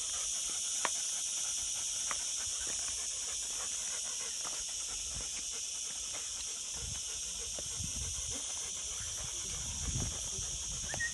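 Dogs panting in the heat, over a steady high hiss.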